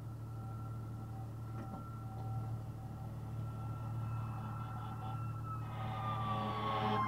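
Fire engine siren approaching, faint at first and growing louder toward the end, its pitch sliding down over the last couple of seconds, over the low steady hum of an idling engine.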